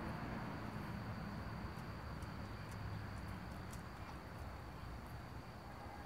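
Faint background noise with a thin, steady high-pitched tone and a few faint ticks; no distinct event.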